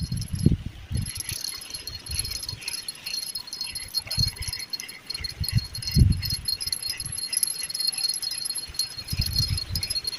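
Insect chorus: a high, steady shimmering trill that starts about a second in and carries on, with occasional low thumps underneath.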